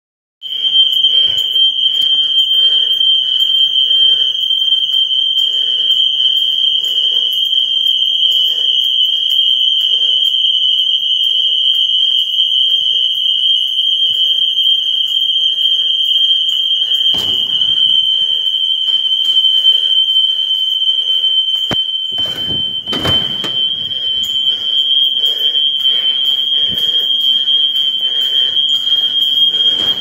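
Building fire alarm sounding one continuous, unbroken high-pitched tone. Under it, footsteps on a hard floor keep an even walking pace, and two sharp thumps come about halfway through and again some six seconds later.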